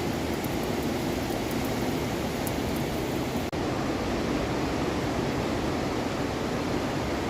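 Steady rush of ocean surf on a rocky shore, mixed with wind on the microphone, briefly cutting out about three and a half seconds in.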